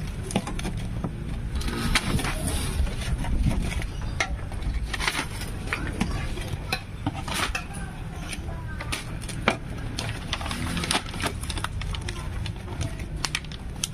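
Stainless steel tongs, fork and scissors clicking and scraping on a steel tray as fried jumbo meatballs are snipped into pieces, in scattered sharp clicks over a steady low rumble.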